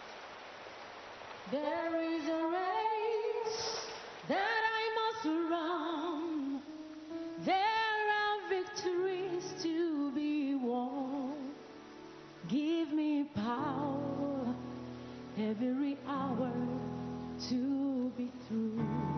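A woman's solo voice singing a slow worship song in long, wavering phrases, unaccompanied at first. Backing instruments come in under the voice about two-thirds of the way through.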